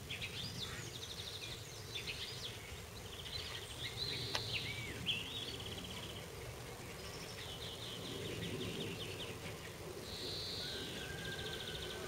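Several songbirds singing, with chirps and fast trills, over a low steady rumble from a diesel railcar still some way off.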